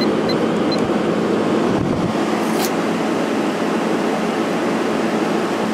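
Midea 8,000 BTU window air conditioner running in fan-only mode on high speed with the compressor off: a steady rush of air from its Welling-motor fan, with a steady low hum.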